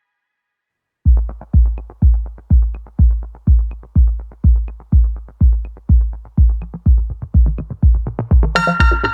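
Electronic dance music. After about a second of silence, a heavy kick drum starts beating steadily about twice a second, and synth chords come in near the end.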